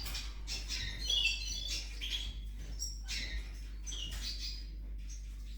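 Canaries chirping, with short irregular high calls over a low steady hum.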